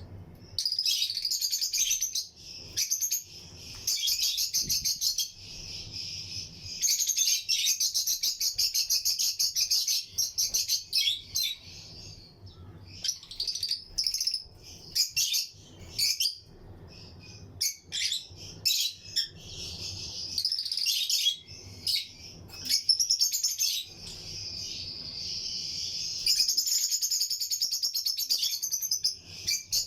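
A flock of lovebirds chirping and chattering together in a shrill, rapid chatter that comes in overlapping bursts.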